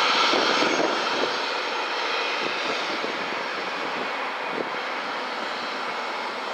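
Boeing 787-8 Dreamliner's twin jet engines at takeoff thrust as the airliner climbs away after lift-off, a steady rush of jet noise that slowly fades as it recedes.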